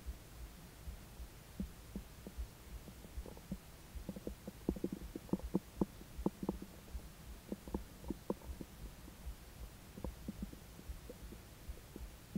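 Stomach and gut gurgling while a steak meal is being digested: a run of short bubbling pops, densest about halfway through, over a low, continual thumping.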